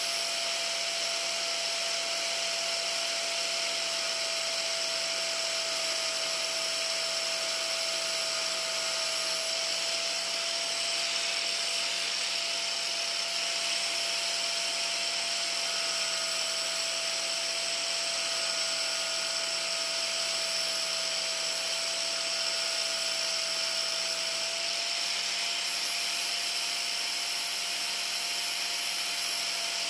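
Handheld electric angle grinder running with a steady high whine, its disc grinding grooves into the wooden handle of a hiking stick to carve a hand grip.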